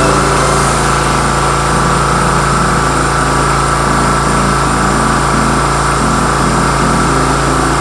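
SNIRREX 3000 portable petrol generator's engine running steadily.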